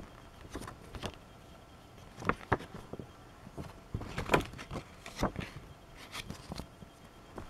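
A folded paper instruction leaflet being handled and leafed through: a string of short paper crinkles and rustles, loudest a little past the middle.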